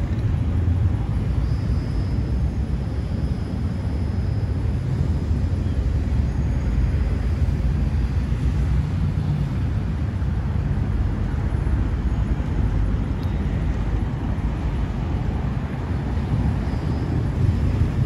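Steady low rumble of passing road traffic and running vehicles, with no single event standing out.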